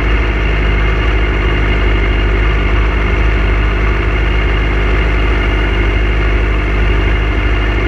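Motorcycle engine idling at low revs, a loud, steady low rumble.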